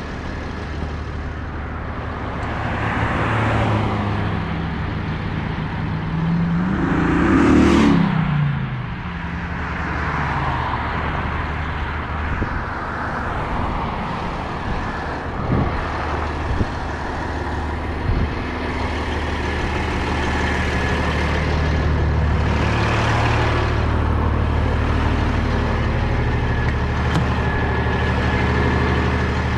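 Heavy tow truck's diesel engine idling steadily while traffic passes on the road, one vehicle going by loudest about seven or eight seconds in, its pitch falling as it passes.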